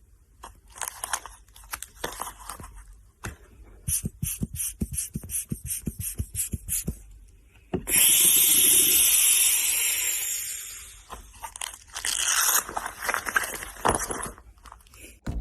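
Foley imitation of a blood-pressure monitor made with a Velcro bag and an empty plastic bottle with a hole: Velcro crackles, then a quick run of clicks and puffs, then about eight seconds in a long hiss of escaping air that fades out, like the cuff deflating. Near the end comes a crackling rip of Velcro pulled apart.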